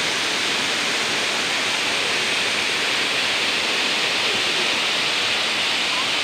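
Steady rush of a small river waterfall spilling over a rock ledge into a pool.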